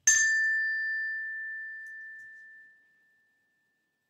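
A small bell struck once, a clear ringing tone that fades away over about three seconds. It is the page-turn signal of a read-aloud storybook.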